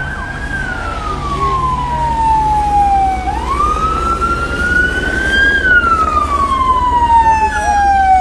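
Police car siren on a slow wail, its pitch rising and falling about every five seconds, with a low rumble underneath.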